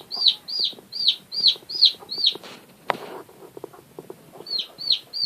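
Newly hatched chick peeping, about three high chirps a second, each rising and then falling. The peeping stops for about two seconds midway and then starts again. The mother hen clucks softly and low underneath, and a single sharp click sounds about three seconds in.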